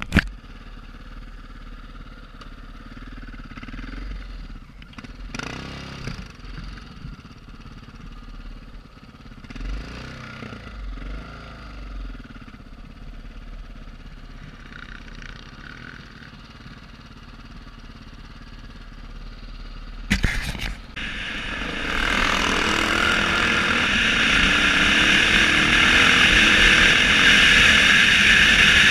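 Dirt bike running at low speed over rough ground, with occasional knocks. About twenty seconds in, after a couple of sharp knocks, the engine becomes much louder and steady as the bike runs at speed along a dirt track.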